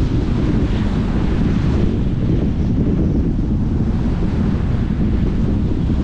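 Ocean surf breaking and washing up a sandy beach, a steady noise with a heavy low rumble from wind buffeting the microphone.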